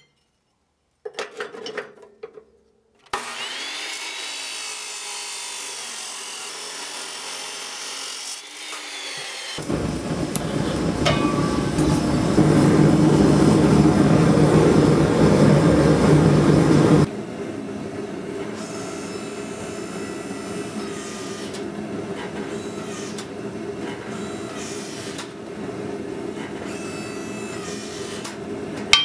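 Abrasive chop saw running and cutting through a Damascus steel billet, followed by the steady, louder rush of a gas forge burning.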